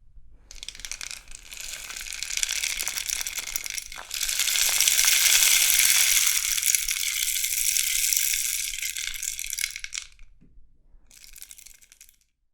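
Rainstick being tipped: its fill trickles down inside the tube in a dense, high-pitched patter like falling rain. It swells to its loudest in the middle, dies away, then trickles again briefly and faintly near the end.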